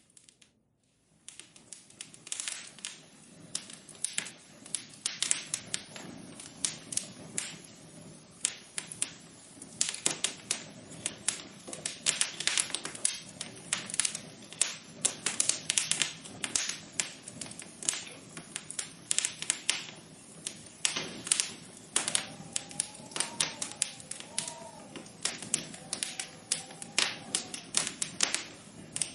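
Rapid, irregular tapping and clicking, several taps a second. It starts after a short pause, about two seconds in.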